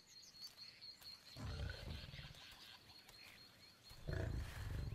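Lions growling over a kill. There are two deep growls, one about a second and a half in and a louder one near the end.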